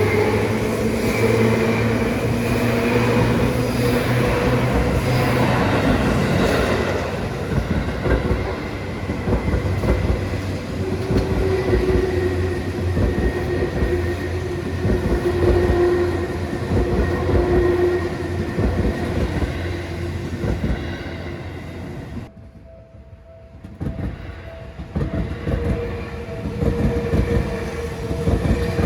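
Seibu Shinjuku Line electric train passing over a level crossing, its wheels clattering in a rhythm over the rail joints. A crossing warning bell rings steadily throughout. The sound drops away briefly about three-quarters of the way through, then a train and bell are heard again.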